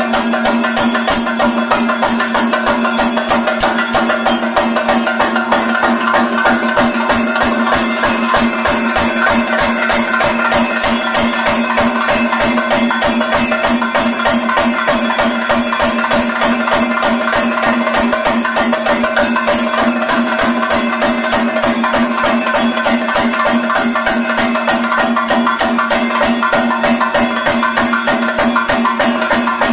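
Thayambaka on chendas, the Kerala cylindrical temple drums: several drums beaten together with curved sticks in a fast, dense, unbroken stream of strokes.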